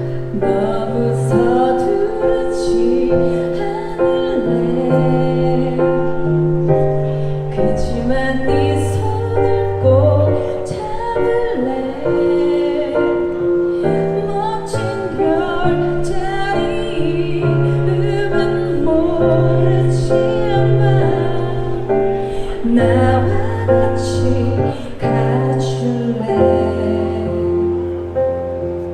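Instrumental break of a pop-ballad backing track played through a busking PA: held bass notes under keyboard chords, with light drum and cymbal strokes.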